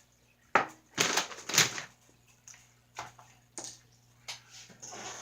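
Small plastic parts clicking and knocking as they are handled and fitted onto a toy's servo, in scattered sharp clicks with a busier cluster about a second in, then a short scraping rustle near the end.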